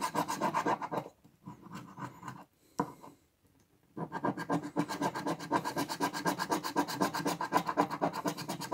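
A large metal coin scraping rapidly back and forth over the silver latex coating of a scratch-off lottery ticket, several strokes a second. The scraping stops about a second in, leaving only a few faint scrapes, and starts again at about four seconds.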